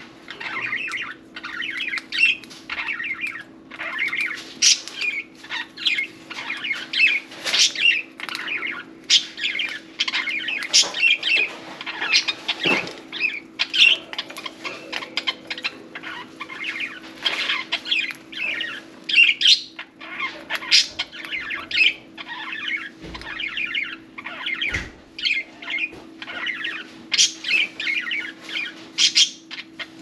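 Budgerigars chattering and chirping without pause, a dense stream of short, quick chirps and squawks, over a steady low hum.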